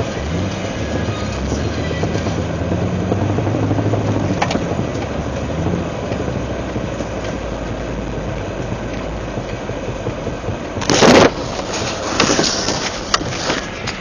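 Lifted 1999 Jeep Cherokee XJ driving in four-wheel drive: a steady drivetrain rumble with grinding from the front Dana 30 axle, and a loud harsh burst about eleven seconds in followed by a few shorter ones. The grinding comes only in 4WD and is worse under load; it persists after new axle u-joints, a rebuilt carrier with new pinion bearings, and a rebuilt front driveshaft, so its cause is unknown.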